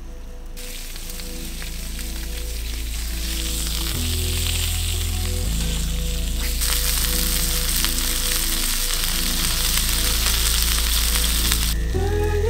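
Pieces of fish sizzling as they fry in oil in a small pan over a campfire. The sizzle starts about half a second in, builds, and stops abruptly near the end.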